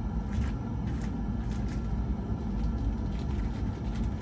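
A steady low rumble, with a few faint rustles and light clicks as a small plastic bag of ceiling-fan parts is handled and searched.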